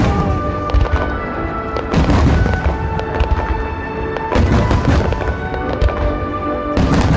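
Large aerial firework shells bursting with deep booms four times, about every two and a half seconds, over music playing continuously.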